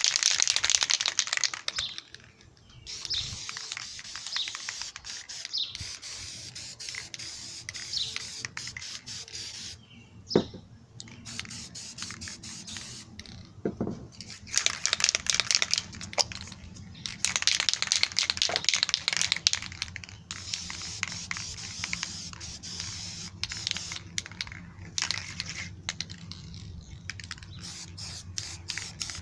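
Aerosol spray paint can spraying in long hissing bursts of a few seconds each, with short pauses between.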